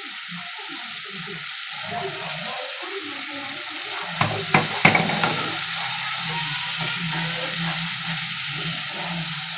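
Ginger and green chilli paste sizzling in hot oil in a non-stick kadai while a wooden spatula stirs it, knocking and scraping against the pan a few times about halfway through. A low steady hum comes in around the middle and stays.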